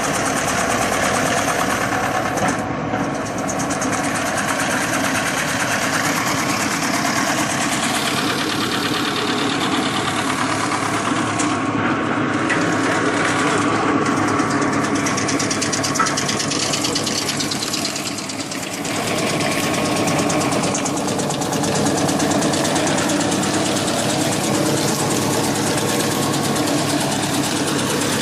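Small disc wood chipper running: a steady, loud mechanical rattle and hum made of fast, even strokes, easing off briefly a couple of times.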